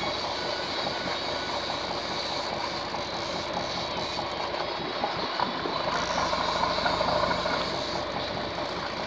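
Boat engine running steadily, a constant drone with the rush of wind and water over it.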